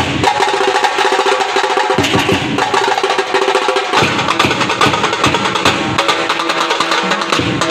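A dhol-tasha drum group playing: large barrel dhol drums and small tasha drums struck with sticks in a fast, dense rhythm.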